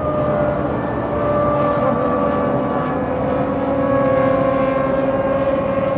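Formula One car's 3.0-litre V10 engine running at high revs: one steady, high engine note that sinks slowly in pitch.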